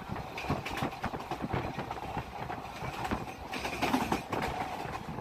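Passenger train running at speed, heard from inside the coach: a steady rumble with wheels clacking irregularly over the rail joints.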